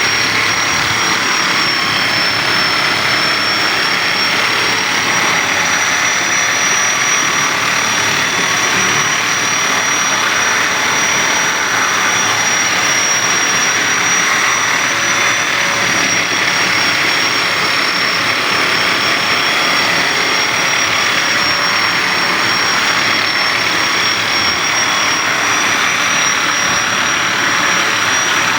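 Steady machine whir with a thin high whine over a hiss, unchanging throughout.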